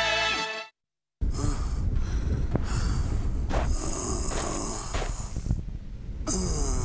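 A jingle cuts off abruptly, and after half a second of silence comes a man's heavy, laboured breathing over a steady low rumble.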